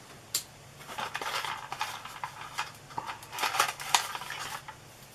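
Hard plastic fishing-lure packaging being handled and pried open by hand: irregular clicks, crackles and clattery taps.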